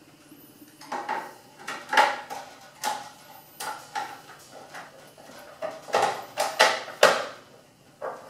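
Circuit-board cover being fitted back onto its housing on an espresso machine's side frame: a series of clicks and knocks of the cover against the metal, loudest about two seconds in and again around six to seven seconds.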